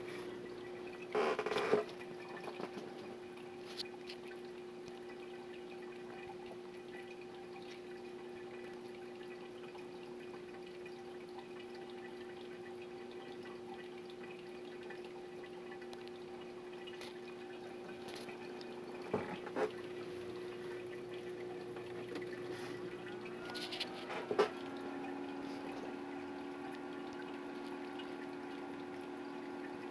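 Biocube 29 reef aquarium running: a steady hum from its circulation pump with water trickling through the filtration. A few brief knocks: one about a second and a half in, two together about 19 s in, and one near 24 s.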